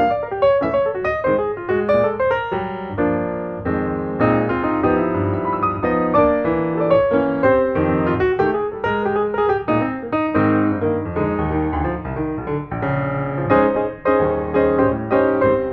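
Background piano music: a steady run of notes and chords, several to a second.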